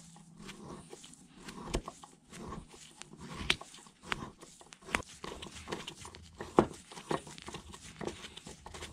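Hand tap cutting threads in a drilled hole in a Bridgeport quill clutch cover, turned by a T-handle tap wrench: irregular metal clicks and scrapes, the sharpest about two-thirds of the way through.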